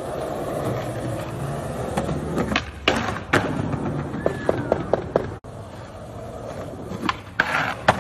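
Skateboard wheels rolling, then a series of sharp clacks and knocks of the board hitting the ground from tricks and landings. The sound cuts off abruptly about two-thirds of the way through, and more clacks follow near the end.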